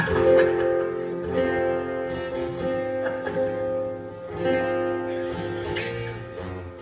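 Guitar strumming chords, each struck and left to ring, a new chord about every second and a half.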